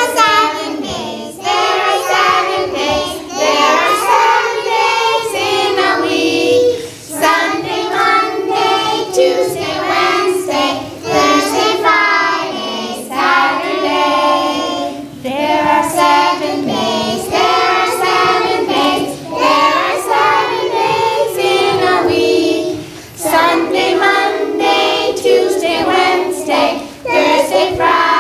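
A group of young children singing a song together, in phrases with brief pauses for breath between them.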